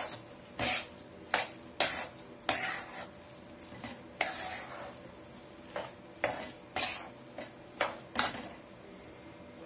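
Steel spatula scraping and clacking against a steel kadai while stirring thick tomato-garlic paste, in irregular strokes about one or two a second; the strokes stop shortly before the end.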